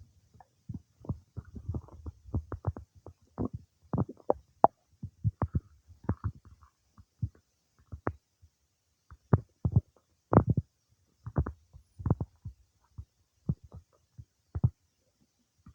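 Stomach and bowel sounds of digestion after a meal: irregular short pops, clicks and gurgles coming in uneven clusters with brief pauses between them.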